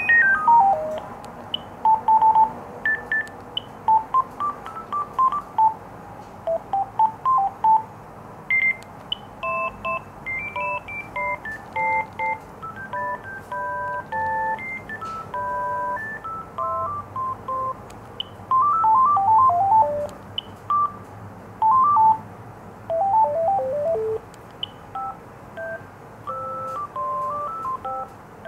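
Gigaset cordless phone handset playing ringtone melodies through its small speaker, previewing one tune after another as the melody list is scrolled. Each tune is a short run of single electronic beep notes, cut off and replaced by the next.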